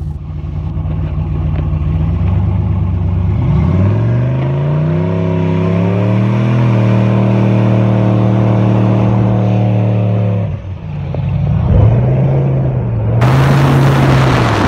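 Car engine revved: its pitch climbs over a couple of seconds, holds at higher revs, then drops back suddenly about ten seconds in and is revved again. A loud rushing noise comes in near the end.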